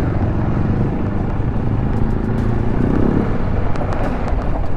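Motorcycle running steadily while being ridden over rough, unpaved ground, with a few light knocks.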